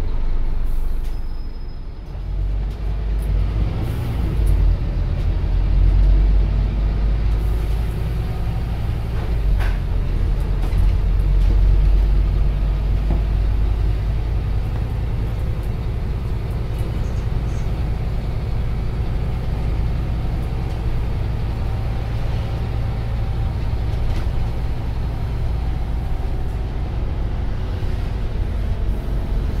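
Inside a Scania Omnicity CN230UB single-deck bus on the move: its diesel engine drones steadily, easing off briefly about two seconds in and then pulling again, under low road rumble.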